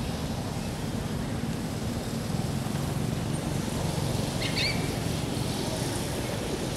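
Steady low rumble of road traffic and vehicles in a parking area, with a short bird chirp about four and a half seconds in.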